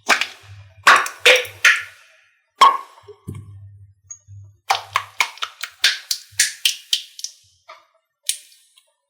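Slime being squished and stretched by hand, making sharp wet pops and clicks as trapped air bursts: a few loud pops at first, then a quick run of clicks, about five a second, midway through.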